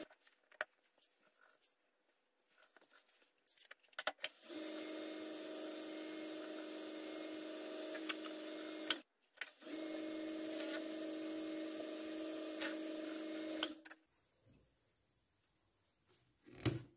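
Wood lathe motor running with a steady hum and whine, starting about four seconds in, dropping out briefly around the middle and stopping a few seconds before the end. A few faint clicks come before it starts, and a single knock near the end.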